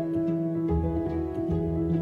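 Background music: plucked-string notes over held tones, with a low bass line coming in under a second in.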